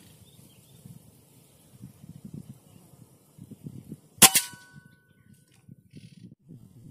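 A single air rifle shot about four seconds in: one sharp crack followed by a brief metallic ring. A faint, uneven low rumble runs underneath.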